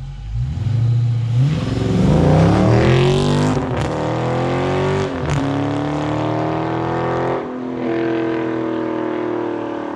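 2020 Dodge Charger Scat Pack's 6.4-litre Hemi V8 on its stock exhaust accelerating hard and pulling away, the revs climbing through the gears with a drop in pitch at each upshift about three and a half, five and seven and a half seconds in, then fading as it drives off. Really loud.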